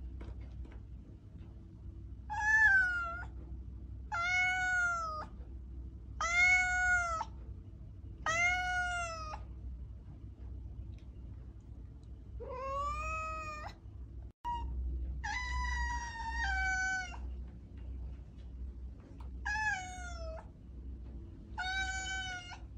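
A cat meowing over and over: about eight separate high meows, most about two seconds apart with a pause of a few seconds midway, each rising and then falling in pitch. A faint low hum runs underneath.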